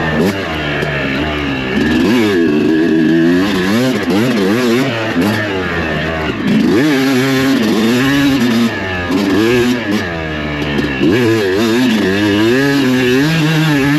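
Dirt bike engine being ridden hard, its pitch rising and falling again and again as the throttle is opened and shut.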